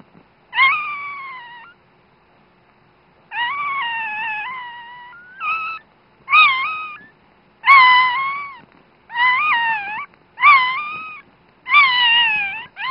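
A newborn dachshund puppy crying: about eight high, wavering cries in a row, most under a second long, with short pauses between.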